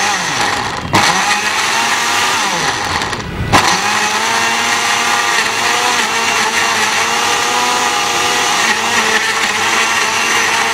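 Electric countertop blender running, chopping tomatoes, green chillies and fried onion with a little water into a paste. The motor cuts out for a moment about a second in and again about three and a half seconds in, then runs on with a steady whine.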